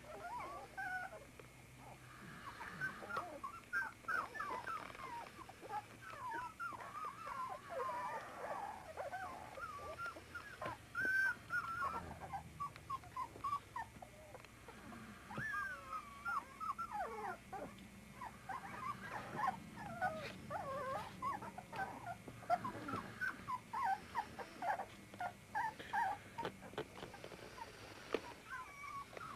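A litter of 24-day-old puppies whimpering and squeaking, with many short, high, overlapping cries. There is a brief lull about halfway through.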